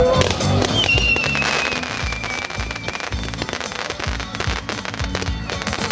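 Two 61-shot Nico 'Apollo' firework batteries firing: a dense run of launch pops and crackling bursts. Background music with a steady beat plays over it.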